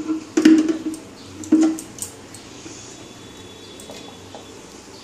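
Stainless steel mixer-grinder jar knocking against the plastic base as it is set in place, three clunks in the first two seconds, then quiet with the motor not yet running.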